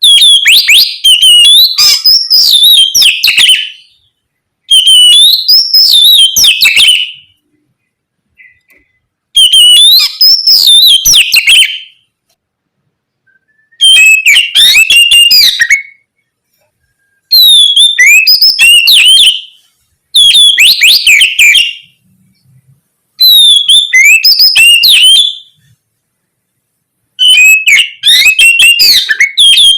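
Oriental magpie-robin (kacer) singing loud, rich song phrases of rapid whistles, slurs and trills in eight short bursts of two to three seconds each, with brief pauses between them.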